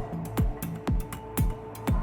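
Electronic background music with a steady kick-drum beat, about two beats a second, over held synth notes and hi-hat ticks.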